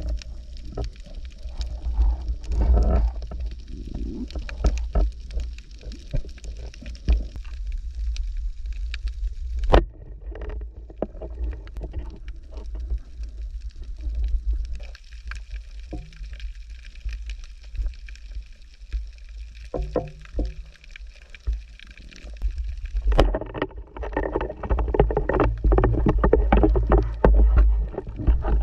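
Muffled underwater sound from a waterproofed camera: a low rumble of water moving against it, with scattered clicks and knocks, the sharpest about ten seconds in. Busier water noise near the end.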